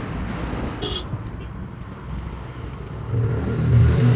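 Low rumble of a road vehicle, swelling near the end, with a short metallic clink about a second in, like a spanner or axle part knocking against metal.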